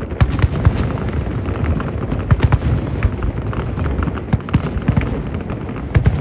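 Fireworks display: a dense run of sharp bangs and crackles over a steady low rumble.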